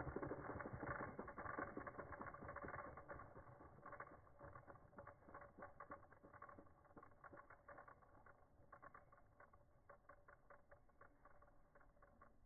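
Spring-wound pullback motor of a small wooden toy car running: a rapid, fine clicking from its gears that gradually slows and fades as the spring unwinds.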